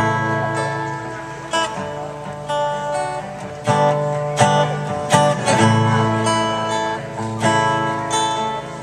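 Acoustic guitar strummed, its chords ringing on between strokes, in an instrumental passage of the song.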